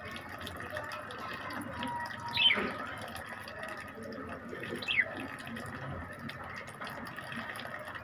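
Water trickling steadily from a small hose into a bird cage's water dish, set out as a bath for pet parrots. A small parrot gives short, high, falling chirps twice, about two and a half and five seconds in.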